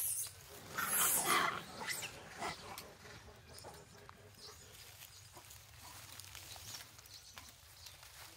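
A few short, harsh animal calls in the first two seconds, the loudest about a second in, then only faint sounds.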